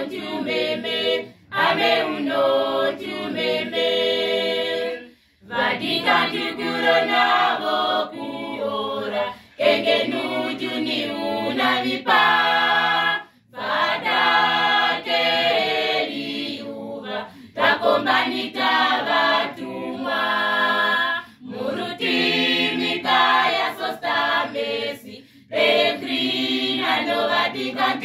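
Youth choir singing a cappella, in phrases of about four seconds with short breaks for breath between them.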